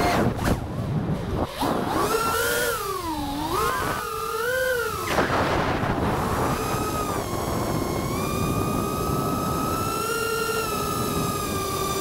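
FPV quadcopter's brushless motors and propellers whining, the pitch rising and falling with the throttle. The whine drops away briefly near the start and again about five seconds in, then holds a fairly steady pitch through the second half, with wind rush underneath.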